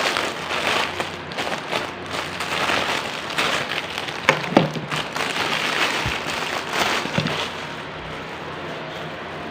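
Plastic doll packaging crinkling and rustling as it is handled, with a few sharper clicks and knocks in the middle. It quietens near the end.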